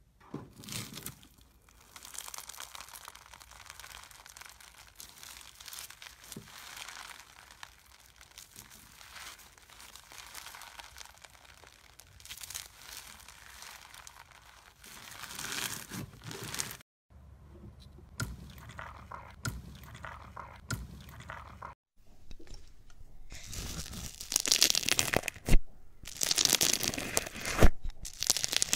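Crunchy bead-filled slime being squeezed and stretched by hand, a dense crackling and popping. The crackling grows louder and sharper near the end.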